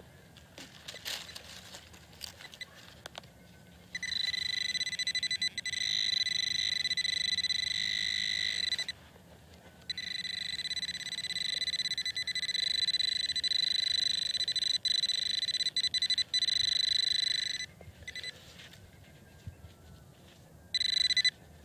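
Metal detecting pinpointer (Whites Bullseye TRX) sounding a steady high alert tone while held on a target in the hole: two long stretches of about five and eight seconds with a short break between, then once briefly near the end. The tone signals metal close to the probe tip. Faint scraping and clicks of soil being worked come before it.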